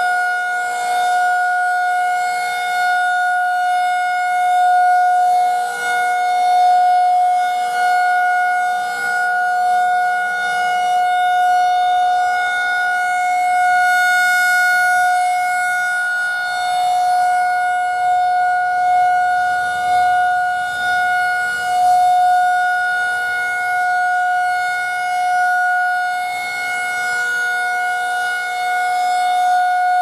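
Federal Signal 2001-SRNB rotating electromechanical warning siren sounding its steady alert tone in a one-minute test. The single pitch holds steady while the loudness swells and fades as the horn turns.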